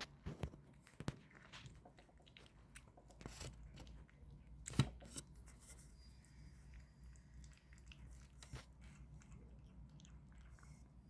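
A kitten chewing and eating soft homemade food: scattered small wet clicks and smacks, with one sharper click about five seconds in.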